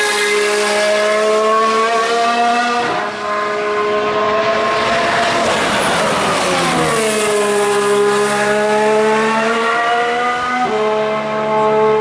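Formula One car accelerating on a wet track, its engine note climbing and dropping sharply at upshifts about three seconds in and again near the end. As it passes close in the middle there is a hiss of tyre spray and a dip in pitch.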